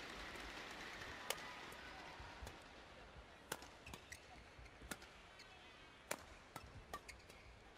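Badminton rackets striking the shuttlecock in a fast doubles rally: sharp, short cracks at irregular intervals, roughly one a second, over a faint hall murmur.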